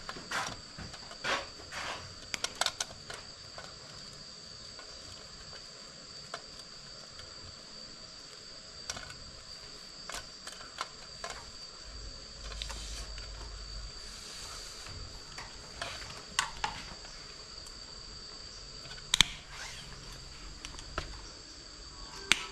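Insects trilling steadily at a high pitch, with scattered sharp clicks and taps from hands and a small tool handling the cable, the loudest click about nineteen seconds in.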